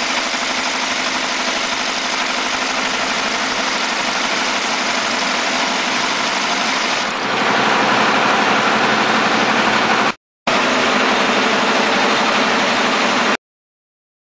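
Shoe outsole stitching machine running, sewing a sole, as a steady mechanical noise. It gets louder about seven seconds in, breaks off briefly around ten seconds, and cuts off suddenly near the end.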